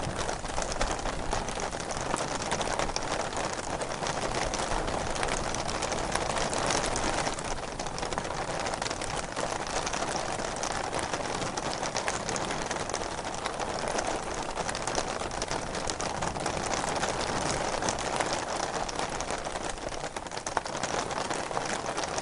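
Steady rain falling, a continuous hiss of dense drops with many fine patters and gentle swells in strength.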